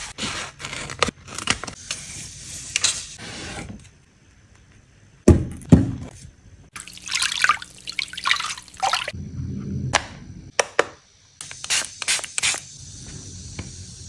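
Close-up ASMR handling sounds of acrylic and plastic craft parts: a string of sharp clicks and taps, with rustling and scratching as pieces are moved and wiped, and UV glue is squeezed from a nozzle bottle along a clear acrylic frame. A heavier thud stands out about five seconds in.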